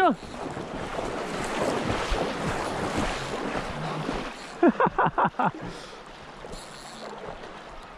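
Water splashing and rushing around a wader hurrying through the river shallows while fighting a hooked sockeye salmon. About five seconds in come a few short, quick human cries.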